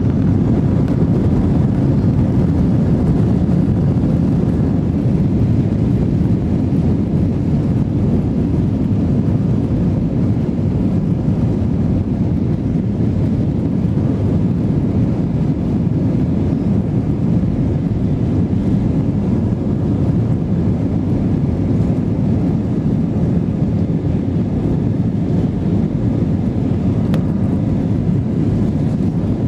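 Steady cabin noise inside an Airbus A321 over the wing as it taxis: a low, even engine drone and ground rumble with no clear change in pitch.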